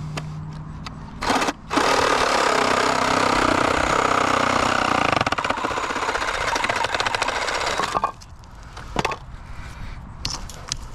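A hand-held power tool with a rapid hammering action, for example a rotary hammer or demolition hammer on concrete. It gives a short blip, then runs in one long burst of about six seconds and cuts off suddenly, over a low steady hum during the first part.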